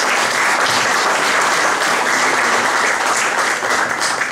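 Audience applauding after a speech, dense clapping that begins to die down near the end.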